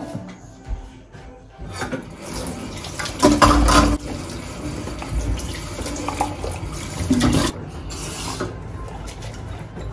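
Kitchen tap running into a stainless steel sink while mugs are rinsed and scrubbed, with the water starting about two seconds in. Two louder clatters come about three and a half and about seven seconds in, likely crockery knocking in the sink.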